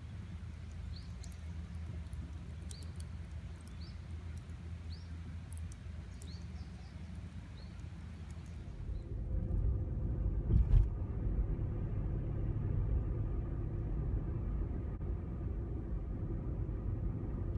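Steady low rumble of a running car. About halfway through it turns louder and duller, with one sharp knock shortly after. In the first half, short high chirps repeat about once a second.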